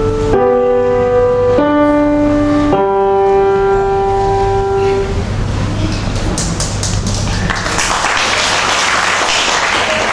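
Grand piano playing three closing chords about a second apart. The last chord is held and rings for a couple of seconds before dying away. Audience applause starts about six seconds in and grows louder near the end.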